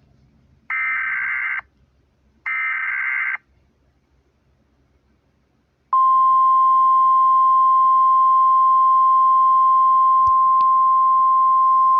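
NOAA Weather Radio Emergency Alert System signal. First come the last two of the three SAME digital header bursts, each a buzzy data squawk about a second long. After a pause of a couple of seconds, the steady 1050 Hz warning alarm tone starts about halfway through and holds. Together they announce a severe thunderstorm warning.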